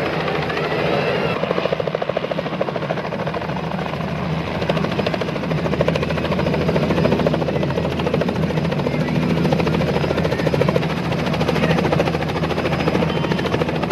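Light two-bladed helicopter coming in low to land, its rotor chopping steadily over the engine, growing somewhat louder about halfway through.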